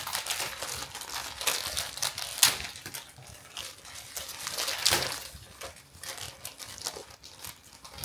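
Thin plastic packaging bag crinkling and rustling in irregular bursts as a flat prize card is worked out of it by hand. The louder crackles come about two and a half and five seconds in.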